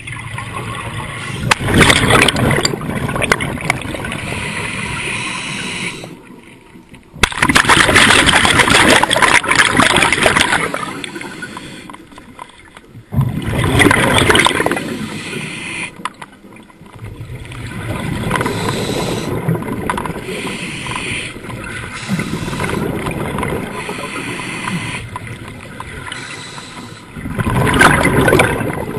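Scuba diver breathing through a regulator underwater: a loud rush of exhaled bubbles every few seconds, with quieter hissing between breaths.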